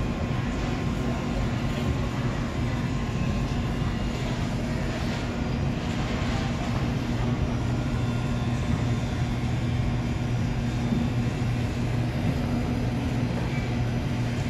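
Steady low mechanical hum of a supermarket's background machinery, even in level throughout.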